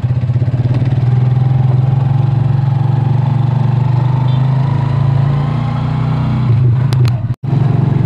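Motorcycle engine of a tricycle running steadily under way, heard from inside its sidecar. The sound cuts out for an instant about seven seconds in, then the engine is heard again.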